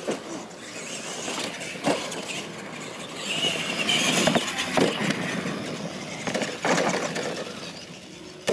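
Two radio-controlled monster trucks racing over a dirt track: their motors whine and their tyres scrabble through the dirt, rising and falling, with several sharp knocks as the trucks come off a ramp and bounce.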